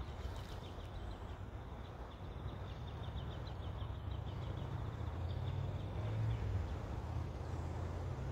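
Wind rumbling on the microphone, with a rapid series of thin, high chirps, about six a second, that fades out about halfway through.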